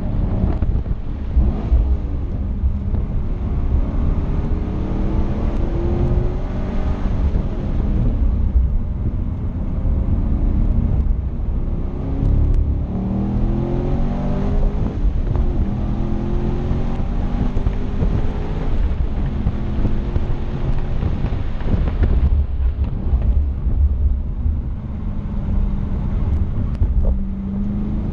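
Chevrolet Camaro Z/28's 7.0-litre LS7 V8 heard from inside the cabin at speed on track, its pitch climbing and dropping again and again as it accelerates, shifts and slows. Heavy low road rumble and wind noise run underneath.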